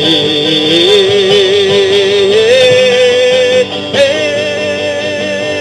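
Male singer drawing out one word as a long wavering note that steps up in pitch twice and then moves to a new note about four seconds in, over a country band's guitar accompaniment.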